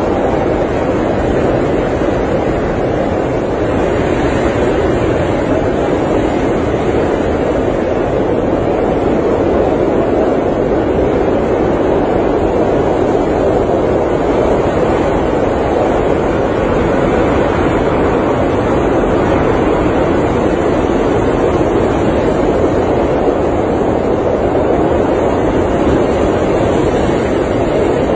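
Blizzard wind blowing steadily, an even rushing noise with no gusts or breaks.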